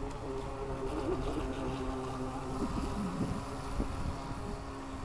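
Harbor Freight Neptune RC boat's battery-powered electric motor whining steadily as the boat runs across the water, its pitch dipping briefly about three seconds in.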